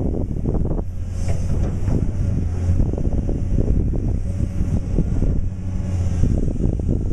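Caterpillar excavator's diesel engine running, its low drone swelling about a second in and easing near the end, with wind buffeting the microphone.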